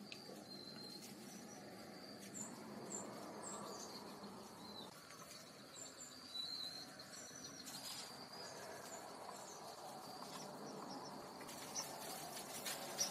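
Faint outdoor ambience: a steady high insect trill with short high chirps scattered over it. Near the end come soft rustling and crackling as a chipmunk noses through dry leaves.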